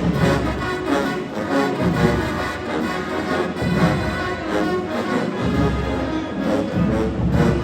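Marching band playing: a full brass section over a drumline, with heavy low brass and bass drum driving the beat.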